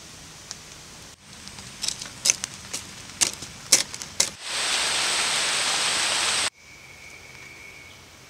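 Wood campfire of stick kindling crackling and popping, about ten sharp snaps over three seconds. Then a loud, even hiss lasts about two seconds and cuts off suddenly.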